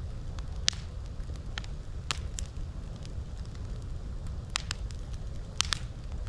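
Campfire crackling, with sharp snaps popping out every second or so, some in quick pairs, over a steady low rumble.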